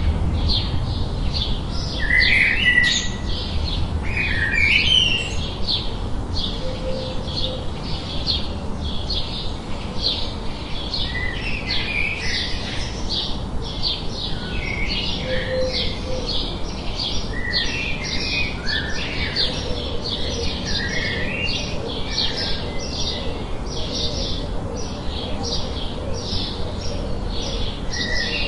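Forest birds chirping and calling: a dense run of quick high chirps throughout, with short swooping calls mixed in, over a steady low background rush.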